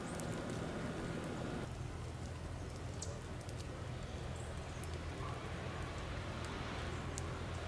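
Steady outdoor background noise with a low hum underneath and a few faint scattered ticks; the background changes abruptly in character a little under two seconds in.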